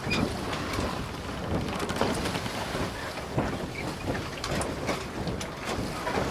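Sailboat under way: water splashing and slapping against the hull over a steady rush of wind and water, with irregular sharp knocks and splashes.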